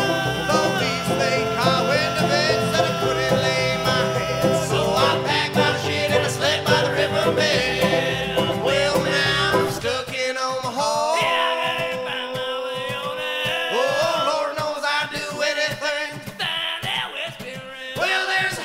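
Bluegrass band music with banjo and guitar over a steady bass. About ten seconds in the bass drops out and the music thins to a sparser part.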